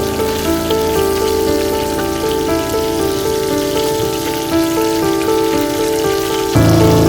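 Background instrumental music, a melody of short held notes, over a steady sizzling hiss of food frying in a pan.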